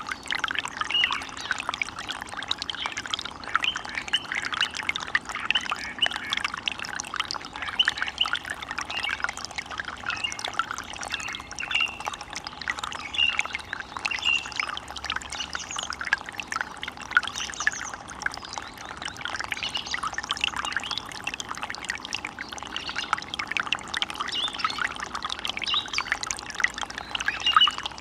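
Water running in a forest stream, a steady, dense patter of small splashes and trickles, with birds chirping now and then over it.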